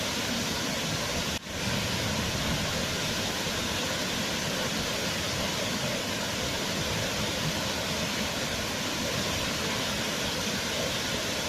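Waterfall: a steady rush of falling water, briefly dipping for a moment about a second and a half in.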